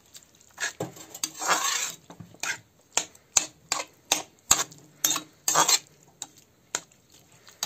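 A perforated metal spatula scraping and clinking against a metal kadhai as grated carrots simmering in milk are stirred for gajar ka halwa. It makes irregular clinks about twice a second, with a couple of longer scrapes along the pan.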